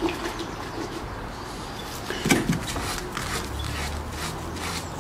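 Faint rubbing and handling sounds of a sponge wiping leak-test water off a scooter's rear tyre, with a brief louder sound a little over two seconds in and a low hum in the second half.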